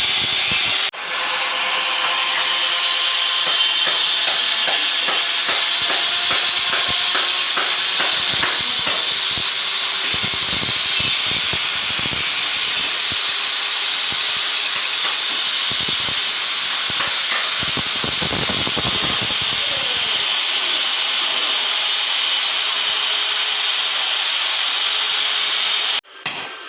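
A handheld electric power tool running continuously at steady speed while working on tile. There is a brief break about a second in, and it stops abruptly near the end.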